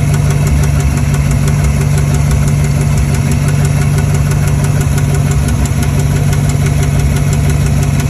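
1967 Pontiac Firebird engine idling, with a fast, even tapping over the steady engine note. The owner takes the tapping for either a bad lifter or a failing rod, kind of like a rod knock.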